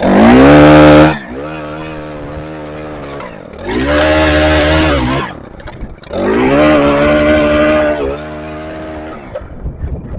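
Stihl BT 131 earth auger's small engine revving up three times in bursts of one to two seconds, dropping back to idle between them.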